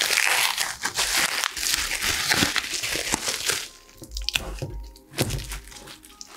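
Plastic bubble wrap crinkling and rustling as it is pulled off a glass hookah base. It is loud for the first three and a half seconds, then gives way to softer handling sounds and a few low knocks.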